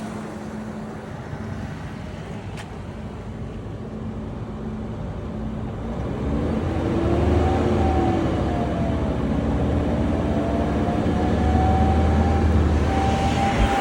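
T1N Sprinter van's engine running, a steady low hum at first. About six seconds in it grows louder and a whine comes in that drifts up and down in pitch: the noise the owner suspects is a turbo problem.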